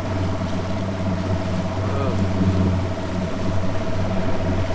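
Bass boat's outboard motor running at idle speed while the boat moves along: a steady low drone with a thin, steady higher whine above it.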